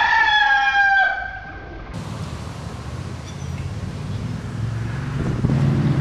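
A rooster crowing once, one long cock-a-doodle-doo that cuts off about two seconds in. Then a steady outdoor hiss, with a low rumble growing near the end.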